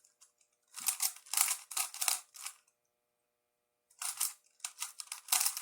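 Plastic speed puzzle being turned fast by hand: two flurries of quick clicking turns, separated by a pause of about a second and a half.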